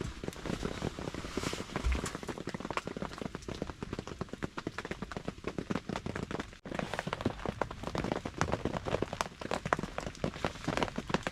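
Heavy rain pattering hard, a dense, irregular run of drops striking a surface. The sound drops out for an instant about two-thirds of the way through.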